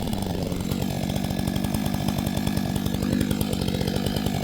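Stihl MS 661 two-stroke chainsaw engine running steadily.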